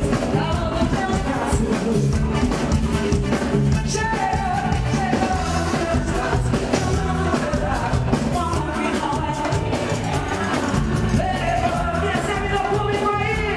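Live pop concert music: a female lead singer over a full band with drums and bass, playing without a break.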